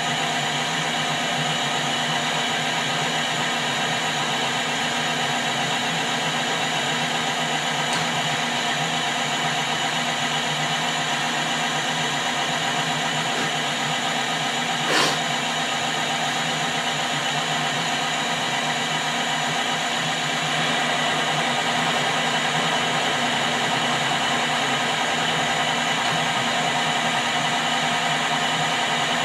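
Metal lathe running steadily while screw-cutting a thread, its motor and gear train making a continuous whirring hum. A single sharp click sounds about halfway through, and the hum grows slightly louder about two-thirds of the way in.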